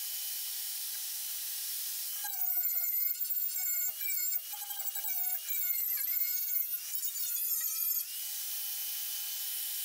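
Power tool spinning a wire wheel to strip surface rust from a body panel. It whines at a steady pitch, then from about two seconds in the pitch drops and wavers with a rougher scrubbing noise as the wheel is pressed onto the metal. Near the end it runs free again at its steady pitch.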